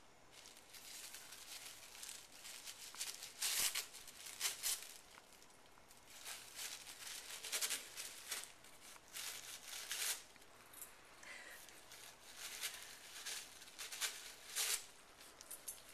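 A long-haired dachshund biting and tugging at thin blue plastic wrapping around a ball: irregular bursts of crinkling and ripping as the plastic tears, the loudest about three and a half seconds in.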